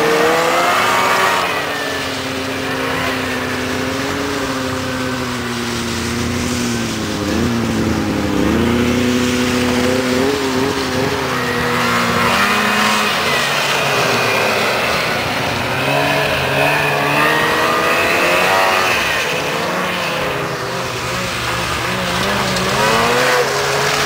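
Snowmobile engines running and revving, their pitch rising and falling again and again as the sleds accelerate, slow and turn.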